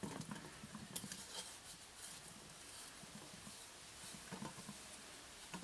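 Wet rag wiping soaked, softened soot off the glass of a stove door: faint rubbing and scrubbing, with a small knock about a second in.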